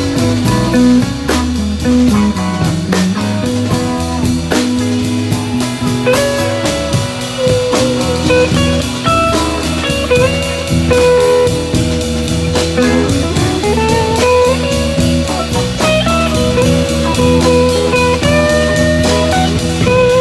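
Live rock band playing, heard from right beside the drum kit: an even stream of drum and cymbal strokes under a lead electric guitar playing long notes that bend up and down in pitch.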